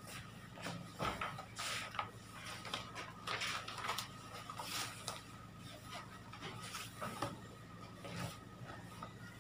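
Faint irregular rustles and light knocks from a person moving close to the microphone, over a steady low electrical hum.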